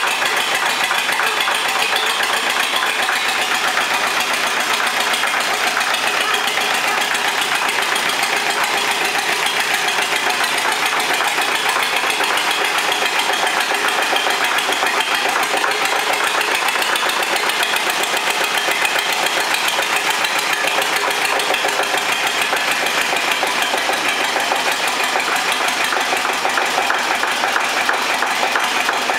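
Zetor 25K tractor's two-cylinder diesel engine idling steadily.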